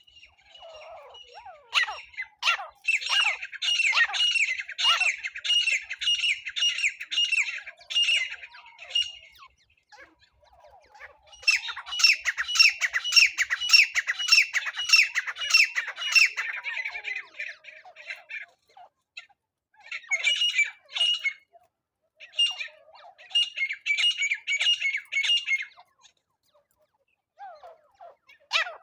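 Francolin (teetar) calling: loud, harsh repeated notes, about two to three a second, in four bouts with short pauses between them.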